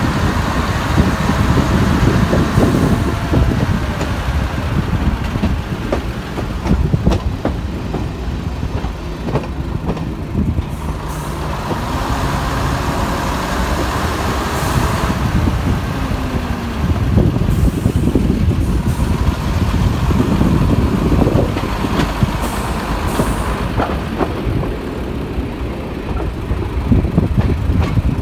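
Class 121 'bubble car' diesel railcar's underfloor diesel engines working as it pulls away and gathers speed, heard from an open window, with the wheels clicking over rail joints and points.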